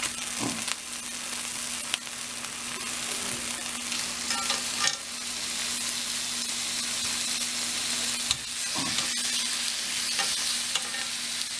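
Cubed round steaks sizzling in hot oil in a cast iron skillet as more raw steaks are laid into the pan, with a few sharp clicks of metal tongs.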